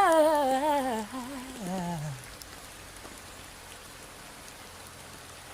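A female a cappella vocal ends with a wavering note that slides down in pitch and fades out about two seconds in. Steady rain continues underneath and is left on its own after the voice stops.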